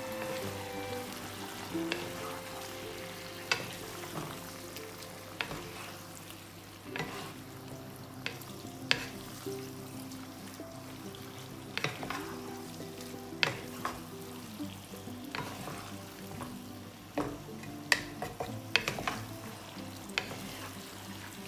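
Chicken and sliced peppers sizzling in sauce in a stone-coated wok pan while being stirred with a wooden spatula, which knocks and scrapes against the pan at irregular intervals every second or two.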